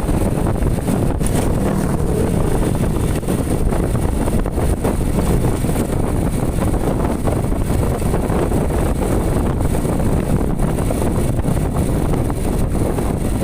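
Steady wind noise buffeting the microphone over a constant rumble of road traffic.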